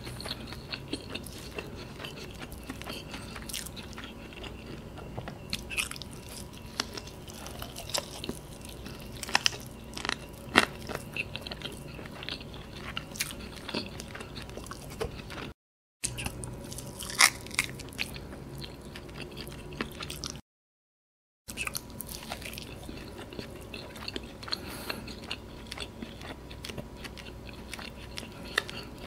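Close-miked chewing and crunching of crisp, bone-in fried chicken (karaage) in black pepper sauce. It is a run of wet chewing marked by many sharp crunches, and it drops out to total silence twice.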